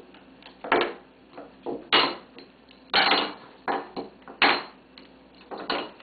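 African grey parrot banging a spoon against a hard surface: a string of sharp, irregular knocks, about one loud strike a second with lighter taps between.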